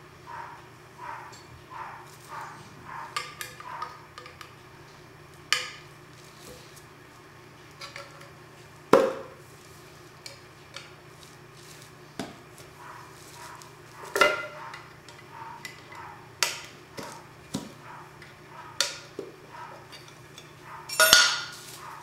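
Irregular clinks and taps of a paint cup and painting tools being handled. A few louder knocks come about 9 and 14 seconds in, and the loudest cluster comes near the end.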